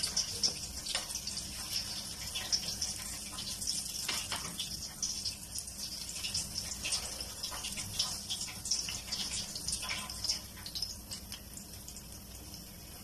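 Besan-battered pointed gourd slices sizzling and crackling in hot oil in a pan, with a spoon now and then touching the pieces and the pan. The sizzle eases a little near the end.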